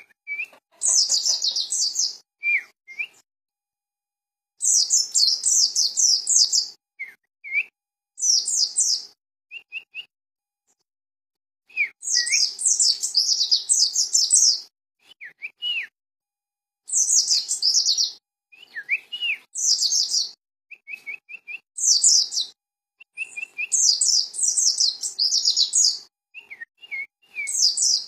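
Caged pleci dakun (white-eye) singing: bursts of rapid, high twittering song one to three seconds long, repeated every few seconds, with short slurred call notes in the gaps between.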